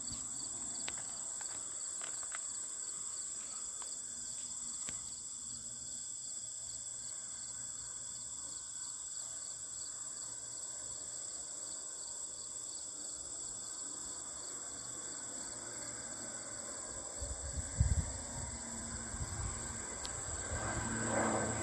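Steady high-pitched chorus of trilling insects, with a brief low rumble of wind on the microphone about eighteen seconds in. Near the end a low engine drone starts to rise, the crop-dusting biplane approaching.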